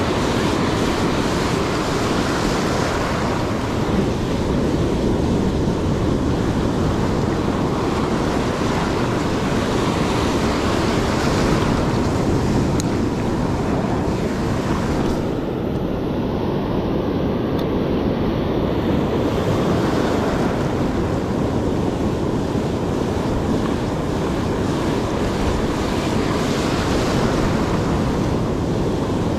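Ocean surf breaking and washing up a sandy beach, a steady rush of noise that swells and eases as waves come in, with wind rumbling on the microphone.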